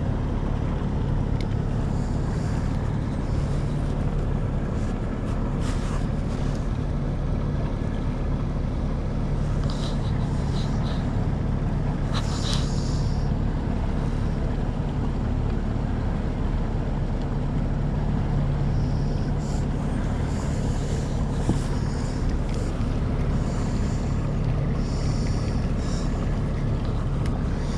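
A 50 hp outboard motor running steadily at low trolling speed, a constant low hum, with a few faint clicks over it.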